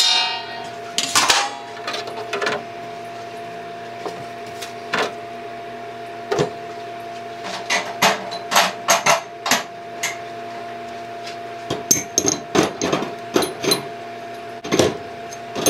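An ultrasonic parts cleaner runs with a steady hum, while steel connecting rods clink and knock against a wire basket and each other as they are set down, in clusters of sharp metallic hits. A stainless lid clatters as it is lifted off near the start.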